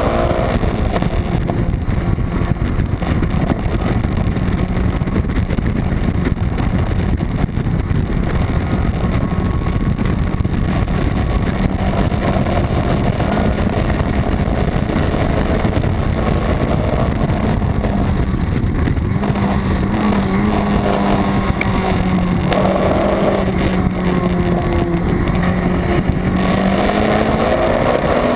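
A Honda Civic race car's B18 four-cylinder non-VTEC engine running hard at nearly steady high revs for a long stretch, with a shift in pitch about two-thirds through and revs climbing near the end, over a constant heavy rush of wind and road noise.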